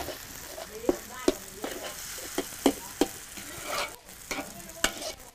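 Pad thai noodles sizzling in a wok while a metal spatula scrapes and knocks against the pan in an irregular stir-fry rhythm.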